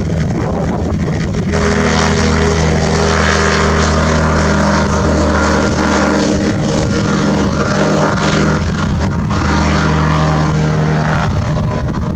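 Rotax 532 two-stroke engine of an ultralight aeroplane running steadily and driving its propeller; the sound grows louder and fuller about a second and a half in.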